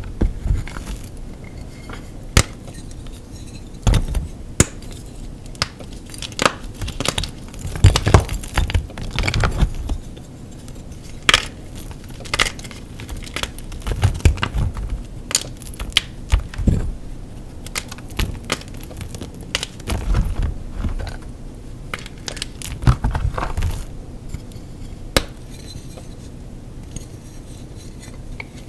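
Blocks of gym chalk being crushed and crumbled: irregular crunches and sharp snaps, coming in clusters with short lulls between.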